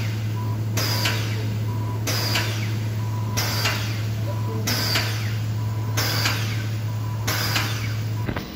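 A pressure washer running with a steady low motor hum, with a short hissing burst about every second and a quarter. The hum cuts off near the end.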